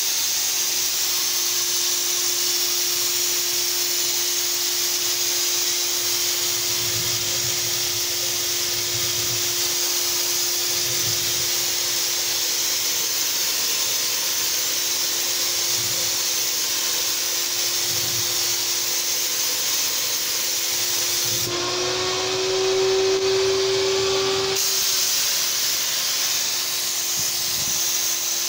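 Graco HVLP paint sprayer running while spraying: a steady turbine hum under the loud hiss of air and paint from the spray gun. Near the end the hum rises slightly in pitch and grows louder for about three seconds, then settles back.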